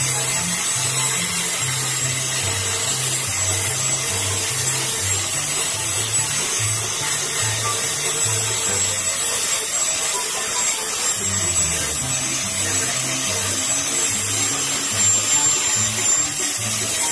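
Angle grinder with a sanding disc running steadily, whining and hissing as it sands and shapes a wooden bolo handle. Background music with a bass line plays along.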